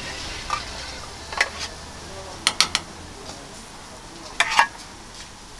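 Shrimp sizzling in butter on a hot flat-top griddle, a steady hiss. Several sharp clacks cut through it: a quick run of three about two and a half seconds in and a pair near the end.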